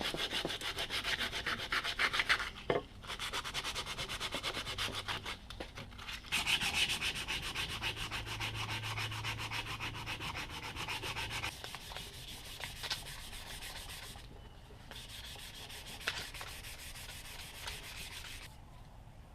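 Sanding an old varnished wooden hatchet handle to strip the varnish: rapid back-and-forth rubbing strokes in several bouts with short pauses between.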